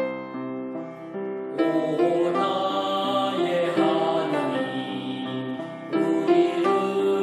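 Background music: a run of single notes, then a fuller arrangement comes in about a second and a half in.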